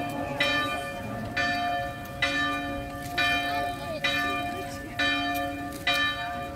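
Church bells ringing in a steady peal, a fresh strike about once a second, each note ringing on into the next.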